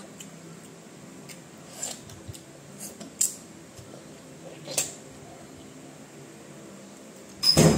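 Short, wet mouth smacks from biting and sucking ripe mango flesh off the skin by hand. A few come spaced about a second or more apart, and a louder, longer one comes near the end.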